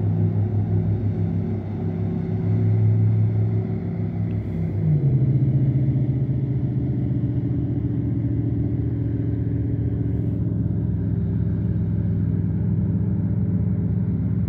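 Big motor yacht's engines droning low and steady across the water; the note drops slightly and evens out about five seconds in.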